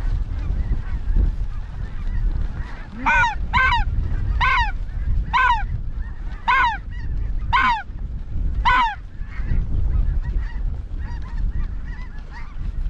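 Goose honking: seven loud, clear honks in a row, each rising and falling in pitch, from about three seconds in, then fainter calling of more geese. Wind rumbles on the microphone throughout.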